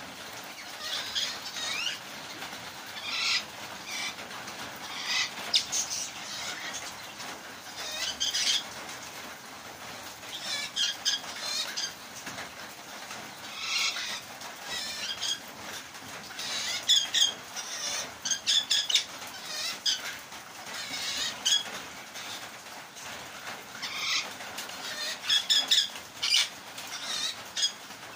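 Parrots in an aviary chattering, with high chirps and squawks coming in quick clusters every second or two.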